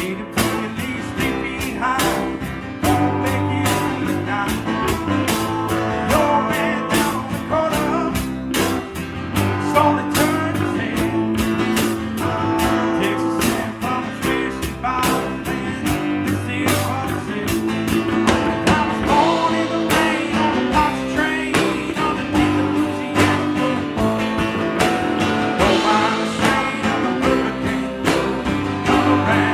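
A band playing a rock song: guitars over a steady drum beat.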